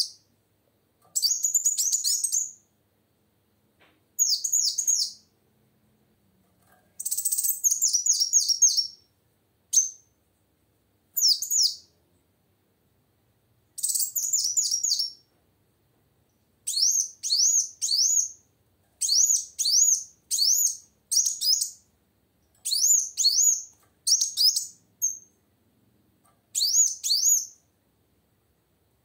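Female kolibri wulung, a sunbird, singing in a cage: phrases of quick, high-pitched chirps about a second long, repeated with short pauses and coming closer together in the second half.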